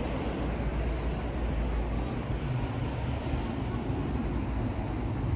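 Steady outdoor street ambience: an unbroken low rumble with a murmur of voices.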